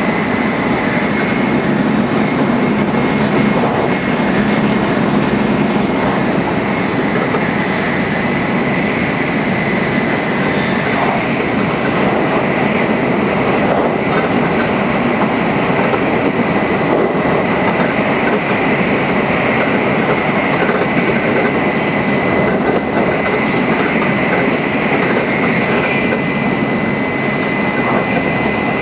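Tokaido Shinkansen Nozomi bullet train running at high speed: a steady, loud rumble and rush of wheels on rail and air, with a thin, steady high whine over it.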